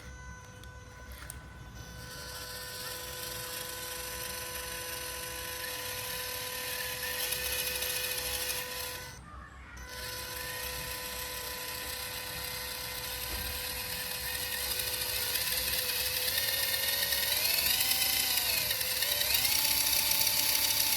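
Small electric motor and gears of an MN78 1/12-scale RC crawler running, with a whine that rises and falls in pitch as the throttle changes. It breaks off briefly about nine seconds in and grows louder toward the end.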